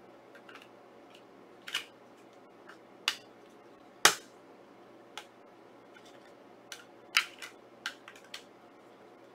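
Sharp clicks and snaps from a Blu-ray steelbook case and its discs being handled: about ten separate clicks, the loudest about four seconds in and several close together near the end.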